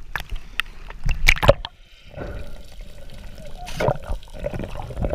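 Water splashing and sloshing as a freediver ducks under the sea surface, loudest about a second in, then the muffled sound of being underwater with a steady hum.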